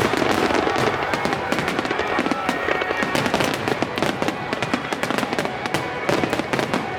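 Starmine fireworks display: shells bursting in rapid succession with dense crackling, over music.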